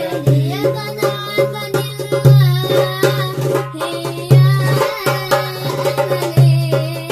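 Shalawat music driven by a darbuka: deep doum strokes land about every two seconds among lighter, quicker hand taps, under a melodic line.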